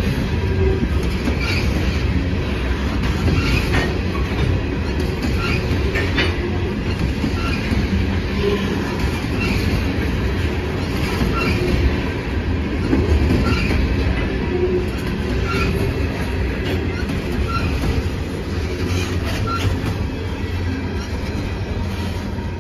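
Freight train of empty coal hopper cars rolling past at close range: a steady rumble of steel wheels on rail, broken by clicks and clanks from the cars.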